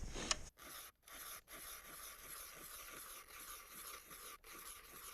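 Ice auger cutting into pond ice: a steady scraping hiss, broken by a few abrupt brief gaps.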